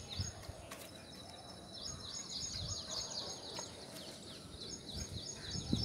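A bird chirping faintly in quick runs of short, high, descending notes, with a few soft low thumps, the loudest near the end.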